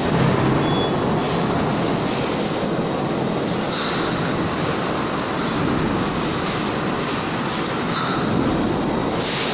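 Automatic fuel-tank washing machine running: a loud, steady mechanical rush, with a short high hiss about four seconds in and again near the end.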